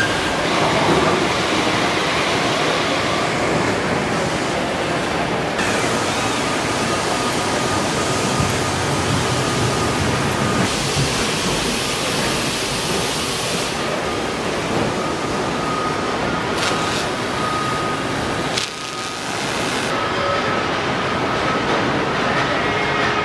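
Factory-floor noise from an automated truck body-shop line: a dense, steady rush of machinery and air, with a faint steady whine in the second half. The sound changes abruptly several times and dips briefly about three-quarters of the way through.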